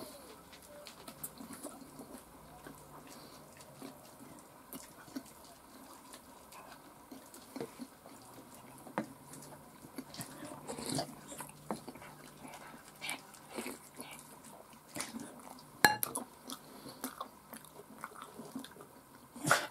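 Close-up eating sounds: chewing bread and taking buckwheat chicken soup from a wooden spoon, with scattered small clicks and knocks of the spoon against the bowl, the sharpest about 16 seconds in.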